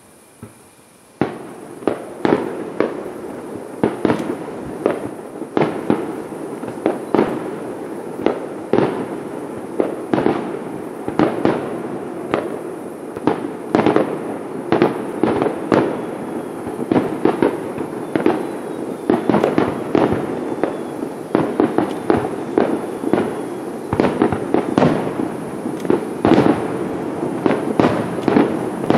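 Aerial fireworks shells bursting in a rapid barrage. After about a second of quiet, sharp bangs come one to two a second over a continuous din of lesser bursts and crackle.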